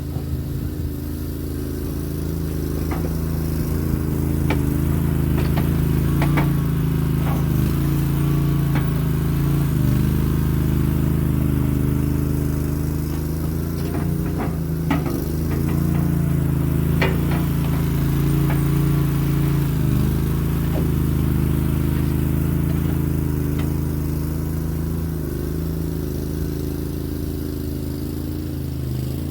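A mini skid steer's engine runs steadily at working speed, briefly dipping in pitch now and then as load comes on. Scattered sharp knocks of metal sound over it.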